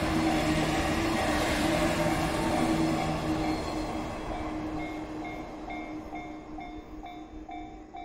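Yellow local electric train running past a Japanese level crossing and fading away, while the crossing's electronic warning bell keeps up its steady clang at about two strikes a second.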